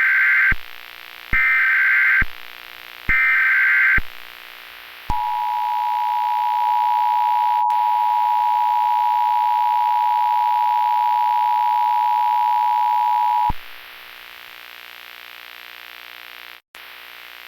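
Emergency Alert System tones: the end of the first and then two more short bursts of the high, warbling SAME header data signal, then the two-tone EAS attention signal held steady for about eight seconds before cutting off. A faint steady hum and hiss follows.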